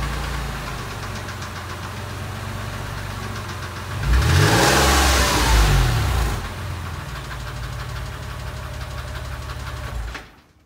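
Porsche 996 3.4-litre flat-six idling warm with a fast, steady ticking. About four seconds in it is revved once, rising and falling over about two seconds, then settles back to idle; the sound cuts off near the end. The owner can't place the tick and wonders whether it is an exhaust manifold leak, a tappet or piston slap.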